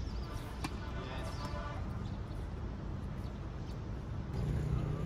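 A tennis racket striking a ball, one sharp hit about half a second in, over a steady low background rumble.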